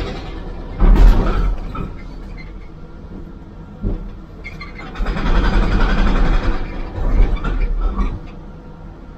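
Caterpillar excavator's engine and hydraulics heard from inside the cab, surging loudly in irregular bursts as the boom works into a concrete building, with a sharp knock about four seconds in.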